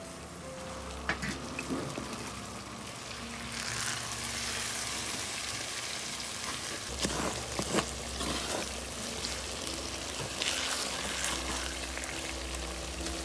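Stuffed okra sizzling as it fries in a clay pot, stirred with a wooden spatula. The spatula gives a few sharp knocks against the pot, about a second in and twice more around the middle.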